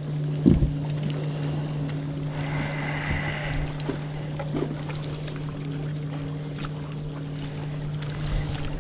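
A bass boat's electric trolling motor humming steadily as the boat creeps along the bank. There is a low knock about half a second in and a few small clicks of gear being handled.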